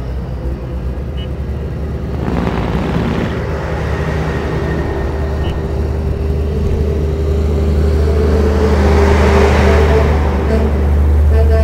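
Diesel semi-truck engines running as a convoy rolls by, a steady low drone that grows louder and swells as a truck passes close, about nine to ten seconds in.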